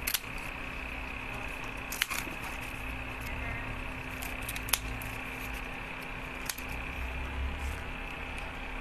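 Scissors snipping through crisp fried pandan-leaf wrapping: a handful of sharp, separate snips a second or two apart, over a steady hum.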